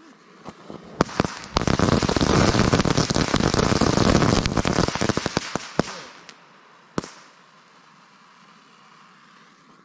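Fireworks going off in a campfire: a few sharp pops, then about four seconds of dense crackling and popping that thins out into scattered pops, with one single sharp bang about seven seconds in.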